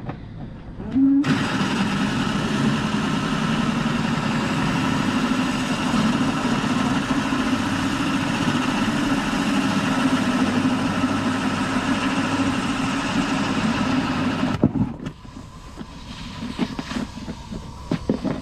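Power drill running steadily as it bores a hole through a fiberglass sailboat hull. It starts about a second in and stops abruptly after about thirteen seconds with a single knock, followed by faint crackles.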